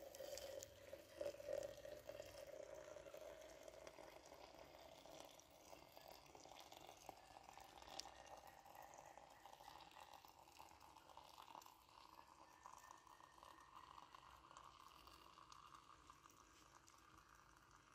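Water running in a thin stream from a samovar's tap into a glass teapot, faint, its pitch rising steadily as the pot fills.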